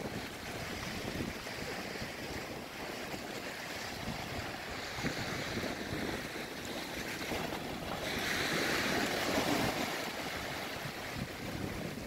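Small waves breaking and washing up a sandy shore, with wind buffeting the microphone. The wash swells into a louder hiss about eight seconds in, then eases.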